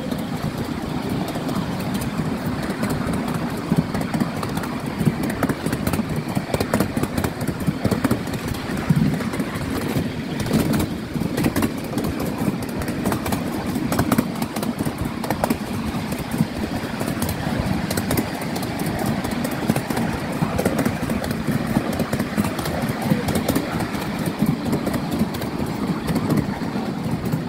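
Miniature railway train running along the track, heard from the riding carriage: a steady rumble with constant small clicks and rattles of the wheels and carriage on the rails.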